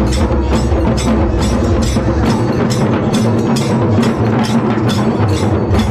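Loud drum-led music with a fast, steady beat of about three strokes a second over a steady low tone. The deepest bass drops out about two seconds in and comes back near the end.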